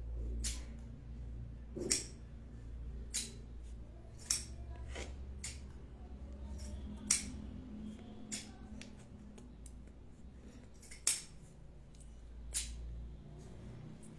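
Scissors snipping cloth: about a dozen short, sharp snips, irregularly spaced a second or so apart, over a low steady hum.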